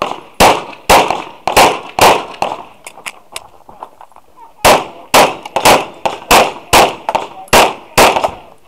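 Glock 34 9mm pistol firing 147-grain handloads in fast strings, mostly double-taps about half a second apart. About four shots come in the first two seconds, then a pause of roughly two and a half seconds, then about eight more shots.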